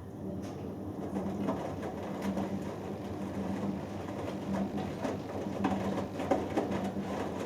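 Hoover Dynamic Next washing machine's drum motor starting up and turning the drum through a wash tumble: a steady hum with a pulsing beat, under the irregular clatter and splashing of wet laundry in the drum.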